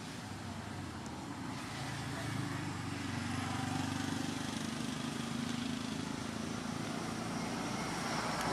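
A motor vehicle engine running steadily, growing louder over the first few seconds and then holding.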